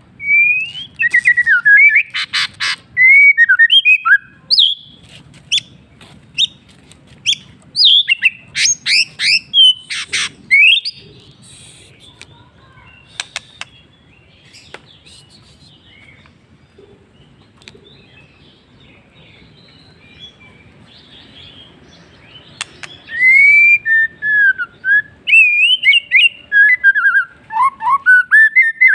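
White-rumped shama singing: varied, loud whistled phrases that slide up and down, mixed with sharp clicking notes. It sings in two bouts, the first lasting about ten seconds, then a pause of about ten seconds with only a few faint notes, then a second bout near the end.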